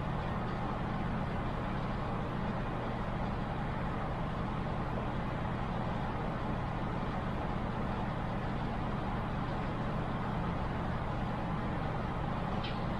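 Steady low machine hum with an even hiss over it, unchanging throughout, with no distinct knocks or clicks.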